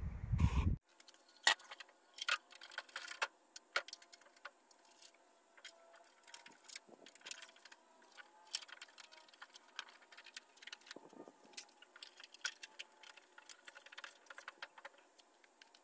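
Irregular light metallic clicks and clinks of hand work on a VW Beetle fender: bolts, washers and hand tools being handled as the fender is fitted to the body. A brief rush of noise, like wind on the microphone, comes before the clicks start, about a second in.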